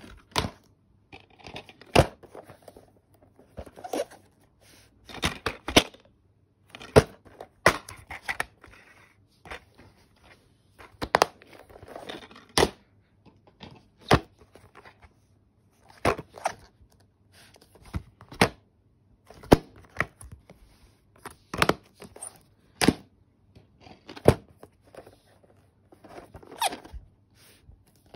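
Plastic DVD cases being handled, opened and set down: irregular sharp clicks and clacks, roughly one a second, with short rustles between.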